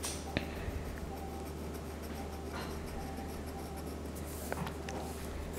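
Pencil scratching on paper as a line is drawn slowly, with a few faint ticks.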